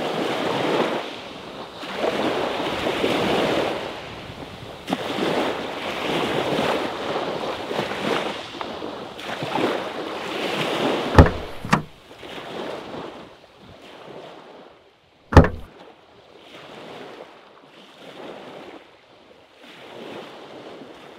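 Small sea waves washing onto the shore in repeated swells, growing softer in the second half. Sharp knocks cut through about eleven seconds in, two close together, and a louder single one about four seconds later.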